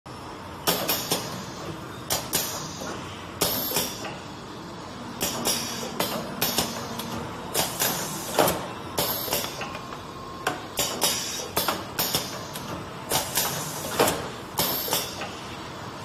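Rotary cartoning machine for dishwasher tablets running, with a steady mechanical background and repeated sharp clacks, one or two a second at uneven spacing.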